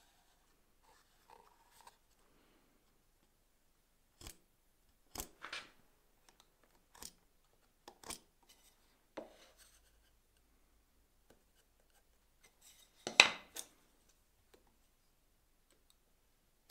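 Knife blade paring and slicing thin cuts off the edge of a wooden board: a string of short, separate cuts starting about four seconds in, the loudest a double cut near the end.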